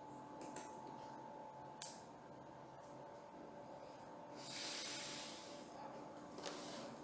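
Quiet room tone with a steady faint electrical hum, a few soft clicks in the first two seconds, and a soft hiss, like a breath, lasting about a second from about four and a half seconds in.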